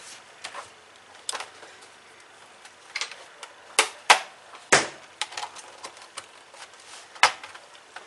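Plastic snap clips of a laptop's bottom cover clicking and snapping as they are unlatched by hand around the case edge. An irregular series of sharp clicks, the loudest a little past the middle and one near the end.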